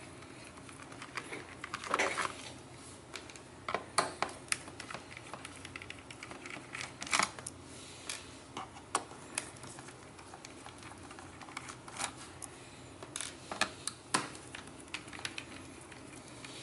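Small screwdriver working screws out of a laptop's plastic bottom case: scattered light clicks, ticks and scrapes of the bit and screws against the plastic, irregular, with a few louder clicks.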